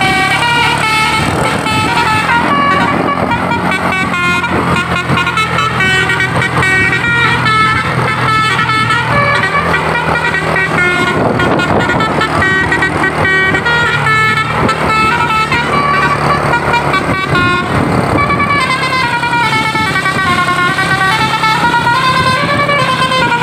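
Basuri telolet musical horn on a bus playing a tune of stepped notes over the bus's engine running. Near the end the notes bend in smooth up-and-down glides.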